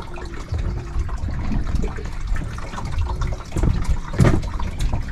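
Seawater sloshing and lapping against a small fishing boat, over a low rumble, with a few sharper splashes or knocks in the second half.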